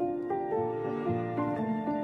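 Background music: calm instrumental with sustained notes changing every half second or so.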